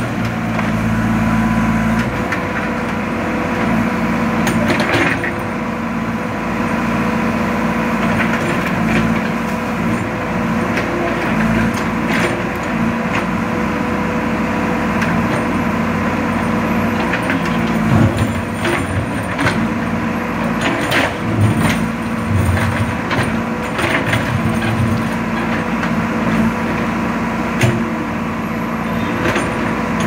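JCB 3DX backhoe loader's Kirloskar diesel engine running under load while the backhoe arm digs, its note rising and falling with the work, over a steady high hum. Scattered knocks and scrapes come from the bucket working soil and stones.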